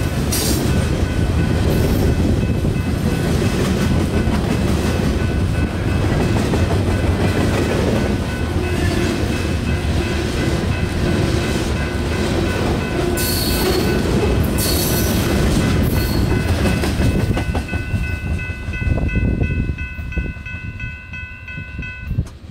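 Freight train rolling past close by: the steady, loud rumble and rattle of the cars' wheels on the rails, with steady high-pitched tones over it. Near the end it grows quieter as the train moves away.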